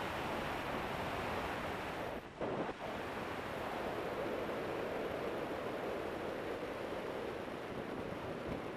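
Heavy wind noise on a camera's built-in microphone on a motorcycle moving at road speed, a steady rushing that masks the engine, with a brief dip about two seconds in.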